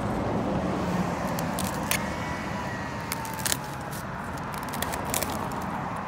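Dog chewing and tearing a dry palm frond: sharp crackles and snaps of the brittle fibres, a handful scattered through, over a steady background noise.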